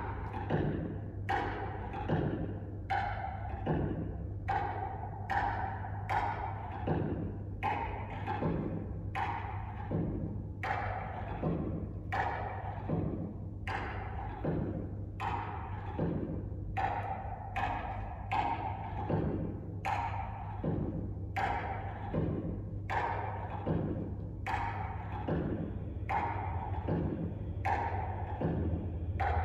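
A steady percussion beat of hollow, drum-like knocks, about one every 0.8 seconds, alternating a deeper thump with a higher, ringing knock, over a faint steady low hum.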